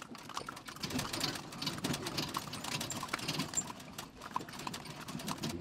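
Hooves of a horse pulling a carriage clip-clopping, a run of irregular sharp knocks.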